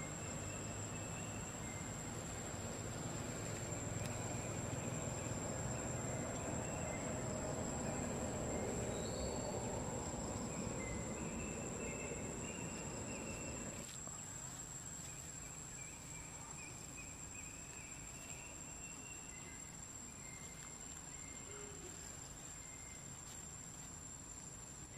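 Outdoor ambience of insects chirping in short, repeated trills over a steady high-pitched whine and a background rush. The rush drops a little about halfway through.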